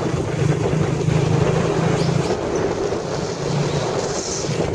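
Motorcycle engine running while riding, a low hum under a steady rush of wind buffeting the microphone.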